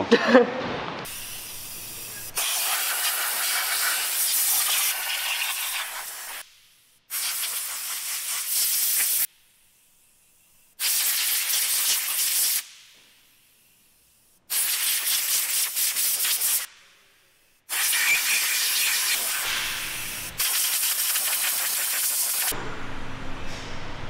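Compressed-air blow gun blasting at an automatic transmission and transfer case to blow them clean: about five hissing blasts of a few seconds each, with short breaks between.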